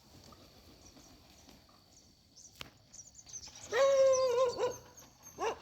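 Peacock (Indian peafowl) calling: one loud, drawn-out call about four seconds in, then a shorter call near the end, over a faint background of insects.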